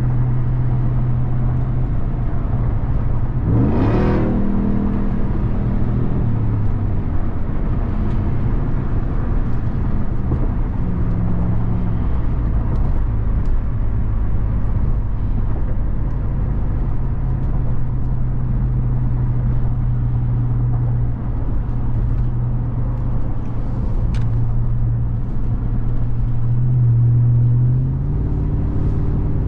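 Supercharged 6.2-litre Hemi V8 of a 2021 Ram 1500 TRX pickup running under way, a steady drone with a quick rising rev about four seconds in and a swell near the end that drops away.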